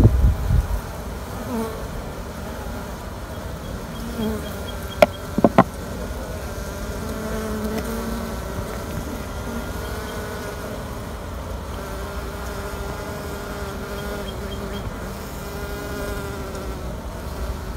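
Honey bees buzzing in flight close by, their hum wavering in pitch as they come and go. Two sharp clicks about five seconds in.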